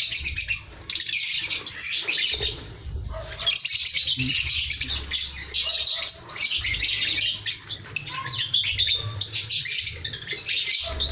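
Lovebirds chirping and chattering in harsh, rapid bursts that come again and again with short pauses between them.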